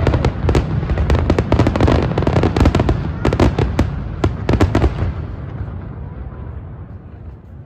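Fireworks going off: a rapid volley of sharp cracks and bangs over a continuous low rumble. It thins out after about five seconds and dies down near the end.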